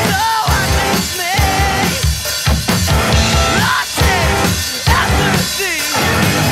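Rock song played live on electric guitar and drum kit, with a steady driving beat and a man singing over it.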